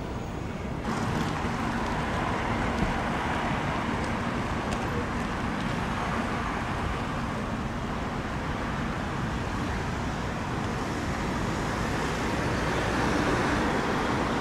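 Steady city road traffic noise: cars and buses passing on a busy street, growing fuller about a second in.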